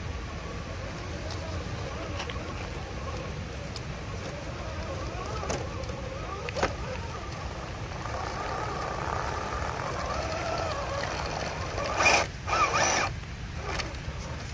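Electric drive of an RC4WD Toyota Extra Cab scale crawler whining as it creeps over roots, the pitch rising and falling with the throttle. Near the end there are two louder, rough bursts of noise as it climbs a hump.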